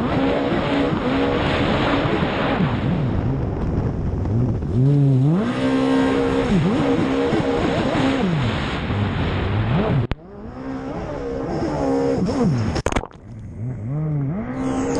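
Racing jet ski's engine at full race pace, its pitch rising and falling repeatedly with the throttle, over a rush of wind and water spray. The sound drops out sharply twice in the second half.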